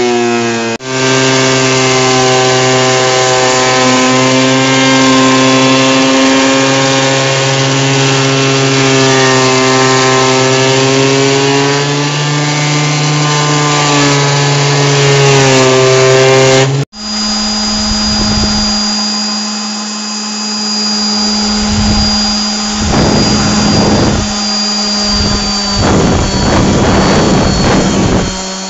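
Electric benchtop thickness planer running at full speed as a wooden board feeds through it, a steady motor-and-cutterhead tone whose pitch wavers slightly under load. About two-thirds of the way in it gives way abruptly to a random orbital sander, which hums with a thin high whine and makes repeated rasping surges as it is worked over the planed wood.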